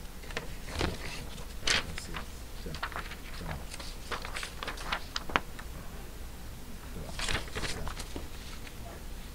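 A sheet of paper handled over a wooden desk: irregular rustles, crackles and light taps as it is moved, lifted and turned, with a sharp click a little past halfway and another cluster of rustling near the end.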